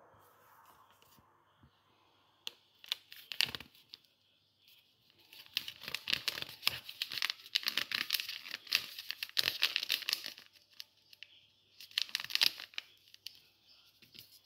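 Ground-cinnamon spice sachet being torn open and crinkled in the hand: a few sharp rips about three seconds in, then a long spell of crackling rustle as the packet is squeezed and shaken out, and another short burst near the end.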